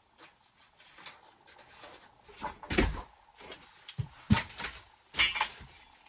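A few sudden knocks and clatters of parts and tools being handled at the work area, starting about two and a half seconds in and coming every second or so.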